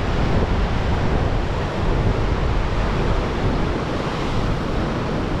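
Choppy sea washing against rocks, a steady surf noise, with wind buffeting the microphone.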